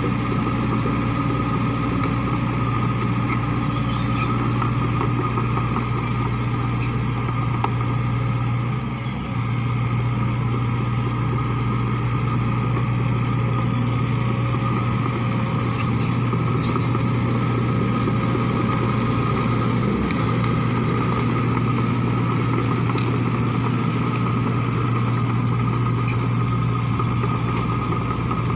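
Diesel engine of a SANY SY55C mini excavator running steadily as the machine moves on its tracks, with a brief dip about nine seconds in.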